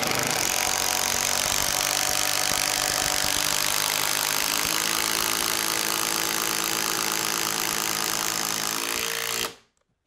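Cordless driver running steadily as it drives a 6-inch lag screw up through the double top plates into a wooden floor joist, stopping suddenly about nine and a half seconds in when the screw is seated.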